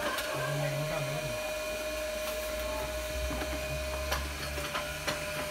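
Industrial sewing machine running as a heavy sail is stitched: a steady motor hum with a constant whine, and a few sharp clicks.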